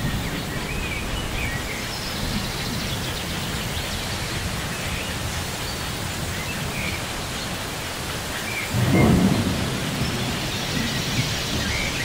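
Steady light rain with a few scattered bird chirps, and a low rumble of thunder about nine seconds in.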